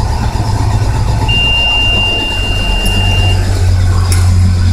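Starter cranking the engine of a Workhorse step van on its own, with no key in the ignition: a malfunction. A steady high-pitched beep sounds for about two seconds over the cranking.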